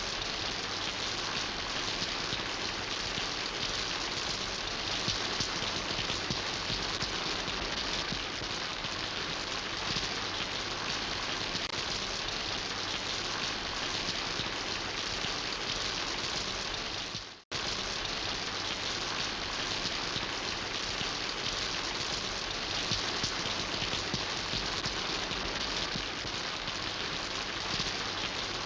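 Steady rain falling, an even hiss of many drops. About two-thirds through it fades out for a moment and cuts back in abruptly.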